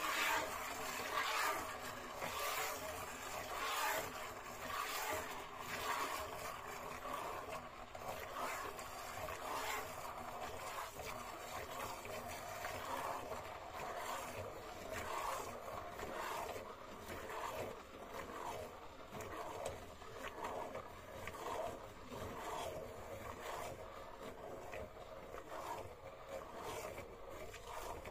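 Goat being milked by hand into a galvanized metal pail: jets of milk squirt into the pail again and again, in an uneven rhythm, with each pull of the teats.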